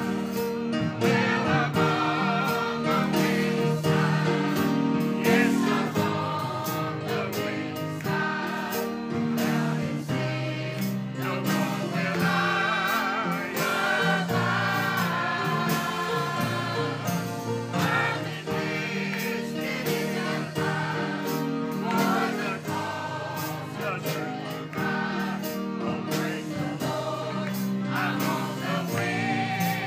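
Mixed church choir of men and women singing a gospel song, accompanied by piano and guitars.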